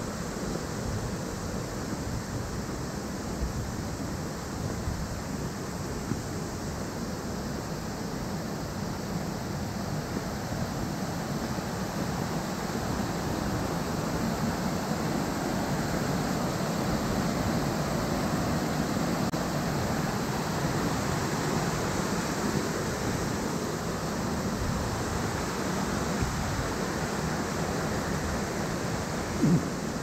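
Mountain stream rushing over boulders and small cascades: a steady rush of water that grows a little louder about halfway through. A brief thump near the end.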